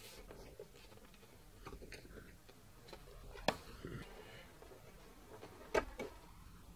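Pencil scratching quietly as it marks a paper strip along a steel rule, with two sharp clicks, one about halfway through and one near the end.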